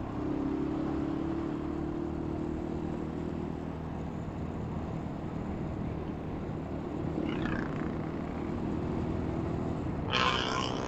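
Vehicle engine and road noise heard while driving: a steady engine hum over low rumble. A short, louder burst of hissy noise comes near the end.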